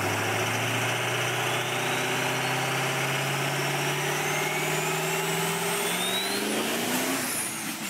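Turbocharged car engine revving up under load, its note climbing slowly and steadily, with a thin whistle rising alongside as the turbo spools up to boost. The sound changes near the end as the climb stops.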